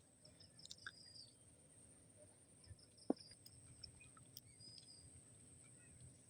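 Faint bird chirps: a few short high calls and quick gliding notes, with a steady faint high-pitched tone underneath. A single sharp click about three seconds in is the loudest sound.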